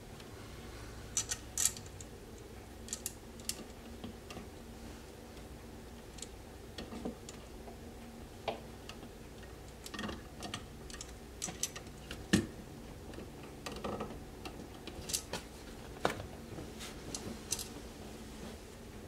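Scattered light clicks and taps from handling a loose wall outlet in its broken metal electrical box, irregular and spread across the whole stretch, with one sharper knock about two-thirds of the way through, over a faint steady hum.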